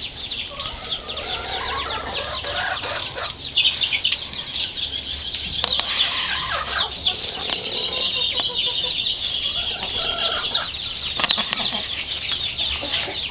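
A flock of chickens clucking, over a constant high chatter of many small birds chirping.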